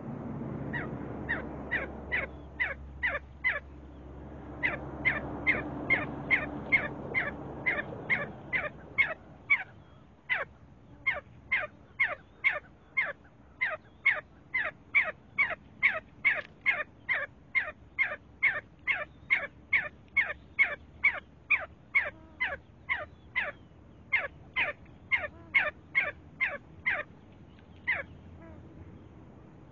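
See-see partridge calling: a long run of short, sharp whistled notes, about two a second, each dropping quickly in pitch, with brief pauses twice early on.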